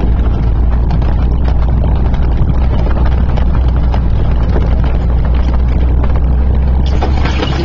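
Jeep CJ-5 driving over a rough trail, heard from inside: its engine runs with a steady low drone while the body and gear give a constant scatter of rattles and knocks over the bumps.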